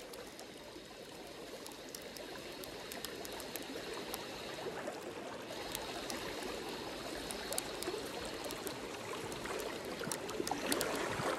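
River water flowing over a salmon pool, a steady rushing hiss that grows a little louder near the end, with scattered light ticks.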